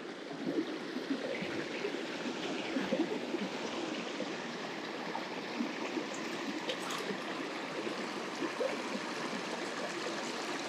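Mountain stream running over rocks: a steady rush of water, with a few faint ticks over it.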